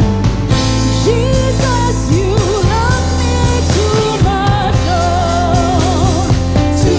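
Gospel worship song: a voice singing a melody with runs and ornaments over a band with steady bass and drums.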